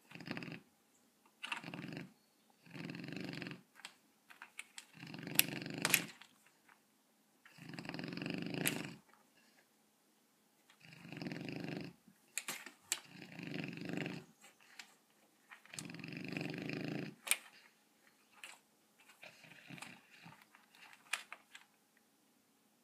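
Young Rottweiler snoring in its sleep: rough, noisy snores about every two to three seconds, with a few sharp clicks among them, the snores growing weaker near the end.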